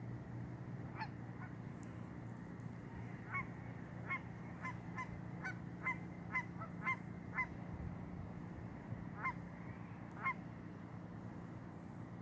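Geese honking: a series of short, sharp honks, coming thick and fast through the middle, then two more, spaced out, near the end.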